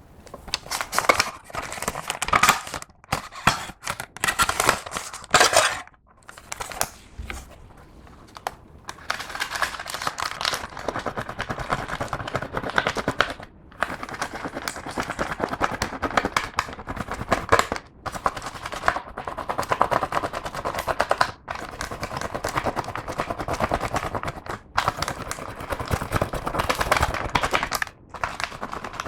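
Clear slime being squished and stretched by hand, with rapid wet crackling and popping of trapped air bubbles. It comes in short separate bursts at first, then runs almost without a break through most of the rest.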